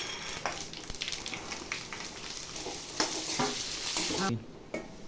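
Chopped amla (Indian gooseberry) sizzling as it fries in hot oil with cumin, fennel and fenugreek seeds, with a few knocks of a spoon stirring it in the pan. The sizzle drops away abruptly about four seconds in.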